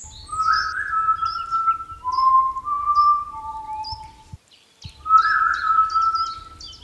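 A whistled tune of long held notes that step down and back up, with birds chirping above it. The sound breaks off briefly a little after halfway, then the tune starts again.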